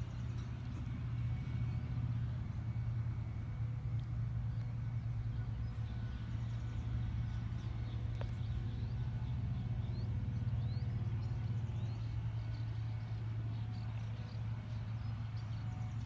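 Steady low outdoor rumble, with faint high bird chirps now and then, most of them in the middle of the stretch.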